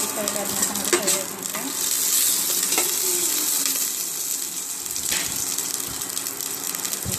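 Cumin and bay leaf sizzling steadily in hot ghee in a steel pressure cooker as an ingredient is poured in, with a couple of sharp clinks about a second and three seconds in.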